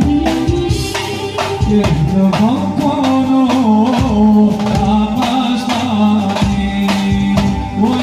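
Live band dance music: a drum kit beating under an electronic keyboard playing a wavering, ornamented melody over a held low note.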